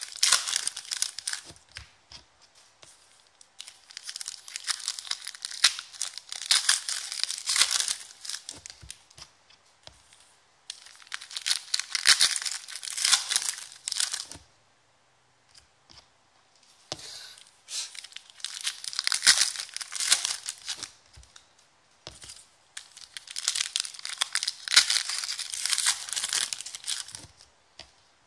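Foil trading-card packs being torn open and their wrappers crinkled by hand, in about five bouts of a few seconds each with short pauses between.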